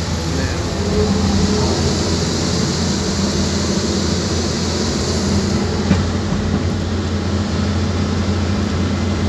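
Excavator's diesel engine running steadily, a low, even hum heard from inside the cab.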